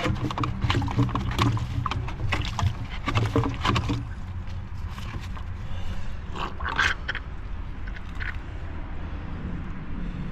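Hand reaming of cut gas pipe ends: quick, repeated scraping and clicking strokes for about four seconds, then a few scattered knocks, over a steady low rumble.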